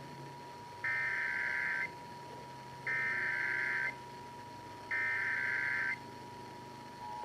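Emergency Alert System SAME header: three identical warbling digital data bursts, each about a second long and a second apart, over a steady faint tone, marking the start of a new alert (here a Required Monthly Test). Near the end the two-tone EAS attention signal begins.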